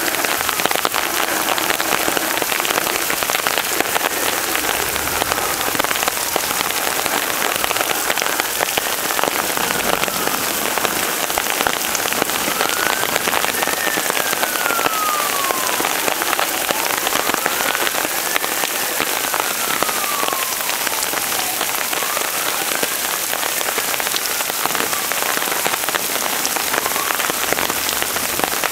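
Heavy rain pouring down steadily. Behind it a fainter tone slowly rises and falls, about every five seconds.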